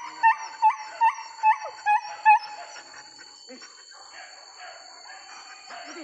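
Hunting dog yelping in a rapid series, about two to three high yelps a second, which stops about two and a half seconds in.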